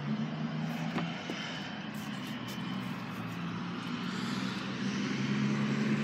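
Vehicle engine idling with a steady low hum, growing louder over the last couple of seconds, with a single sharp click about a second in.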